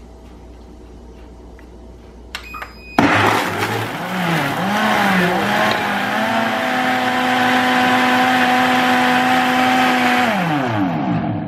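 Elechrome high-speed blender running its fruit-juice program on ice and fruit: a few short ticks, then the motor starts about three seconds in, its pitch wavering as the blades work through the load before settling into a steady whine, and winding down with a falling pitch near the end.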